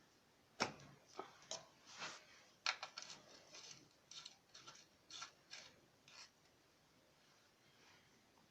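A quick, uneven run of light clicks and knocks, about a dozen, the first the sharpest, stopping about six seconds in.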